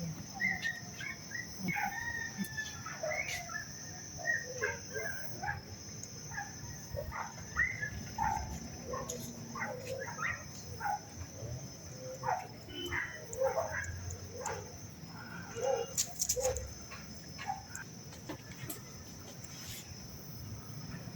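Many short bird calls, scattered and irregular, over a steady high-pitched drone.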